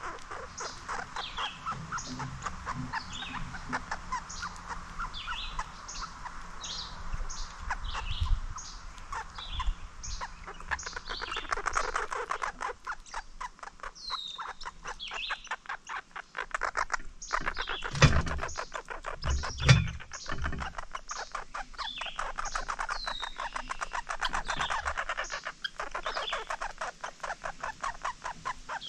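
Wild songbirds chirping with many short high calls, and a fast rattling trill that runs through the second half. Two dull thumps come a couple of seconds apart about two-thirds of the way in.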